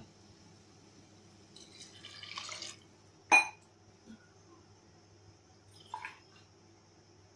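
Hot water poured into a pressure cooker pot of masala-coated vegetables, a splashing pour lasting about a second. A sharp clink follows about halfway through, and a fainter knock near the end.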